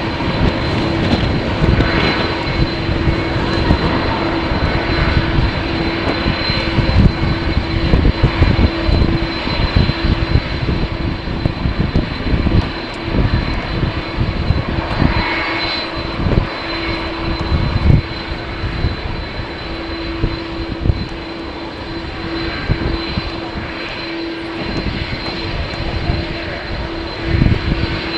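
Jet airliner engines running, with a steady whine, under strong wind buffeting the microphone.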